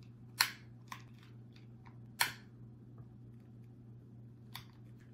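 Long-nosed butane utility lighter being clicked to light a candle: two sharp clicks of its trigger-operated igniter about two seconds apart, with a few fainter clicks of handling between and after, over a low steady hum.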